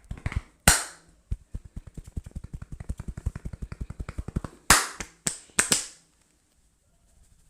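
Hands slapping and tapping on a client's head and shoulders in a barber's massage: a few sharp claps, then a fast run of light taps at about a dozen a second for around three seconds, then four more sharp claps close together.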